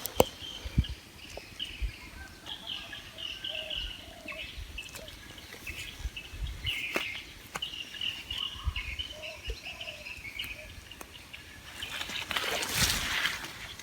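Birds chirping with many short high calls, with scattered clicks and low knocks. A louder burst of rustling noise comes about a second and a half before the end.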